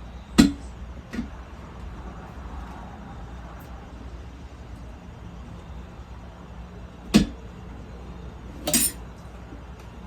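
Four sharp knocks and clinks of tools and metal parts being handled during ATV swing arm reassembly, with the loudest about half a second in and a rougher, slightly longer one near the end, over a steady low hum.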